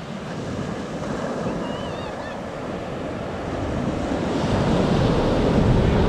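Ocean surf washing up onto a sandy beach, with wind buffeting the microphone. The wash of the surf swells louder about four seconds in. A few faint high chirps come through about two seconds in.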